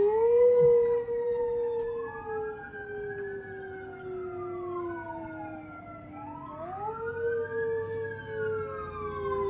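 Pit bull howling along with a siren: a long howl that sags slowly in pitch, then a fresh howl about 7 s in. A fainter siren wails up and down underneath throughout.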